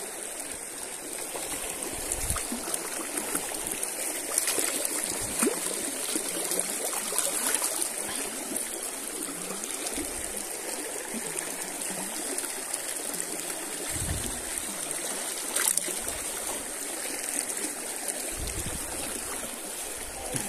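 River water running and trickling over rocks, a steady rush with a few sharp clicks scattered through it.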